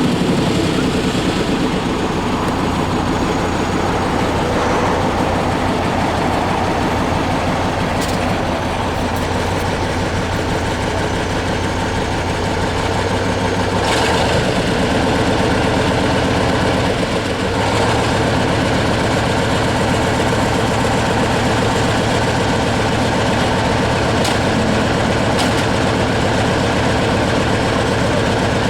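A heavy engine running steadily, with a few short clicks over it.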